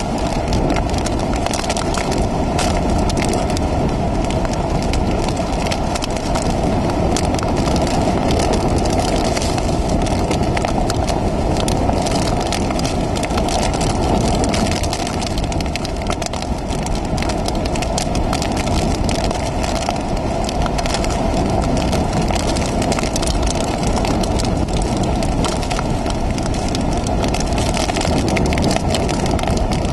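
Hurricane-force wind and driving rain: a loud, steady rush buffeting the microphone, with a dense crackle of rain through it.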